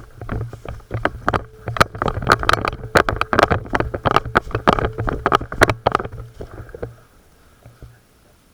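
A player's hurried footsteps and rustling through undergrowth, with gear and the body-worn microphone knocking and rubbing in a fast, irregular clatter. It dies away about seven seconds in.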